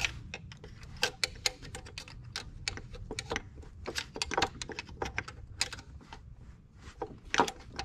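Irregular clicks and knocks of hard engine parts being wiggled and pried by hand at the thermostat housing of a BMW E46 M3, where the thermostat is sticking in its housing. A few sharper knocks come about a second in and near the end.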